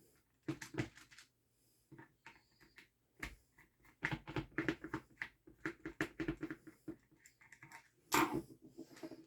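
Hands handling the opened shell and parts of a revolver-style paintball marker: a run of small clicks, taps and knocks of plastic and metal parts, busiest in the middle, with a louder clatter about eight seconds in.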